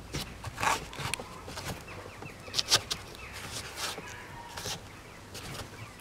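A hand rubbing and pressing on plastic film stretched over a round container, giving short bursts of crinkling and scraping. Birds chirp faintly in the background.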